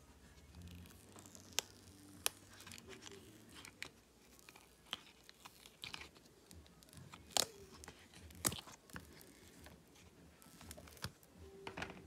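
A flexible silicone mould being peeled and flexed off a cured clear resin piece: crinkly tearing and rustling, with sharp snaps and clicks scattered through. The loudest snaps come past the middle, and a quick cluster of them comes near the end.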